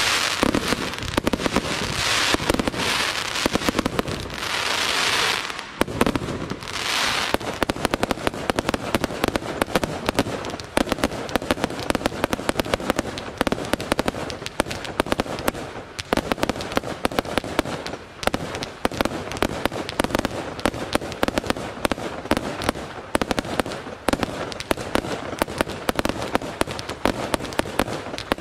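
Aerial fireworks display: loud hissing crackle from crackling-star shells for the first seven seconds or so, then a dense, rapid run of sharp bangs and crackles from bursting shells.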